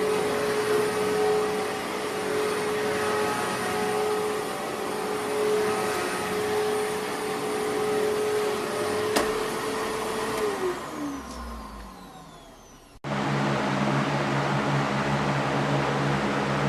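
A vacuum cleaner running steadily with a whine over its rushing air. About nine seconds in there is a click, and then the motor winds down, its pitch and level falling. It cuts off abruptly and is replaced by a different steady machine whir with a low hum.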